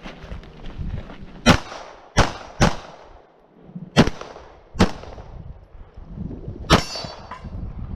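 Six 9mm pistol shots from a Glock 34, fired close to the shooter during an IPSC stage, irregularly spaced: a single shot, a quick pair, two more singles, and a last shot near the end.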